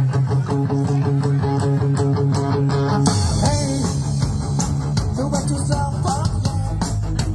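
Live dance rock band playing an instrumental passage without vocals: electric guitar over bass and drums. About three seconds in the chord changes, cymbals come in and the guitar plays sliding, bent notes.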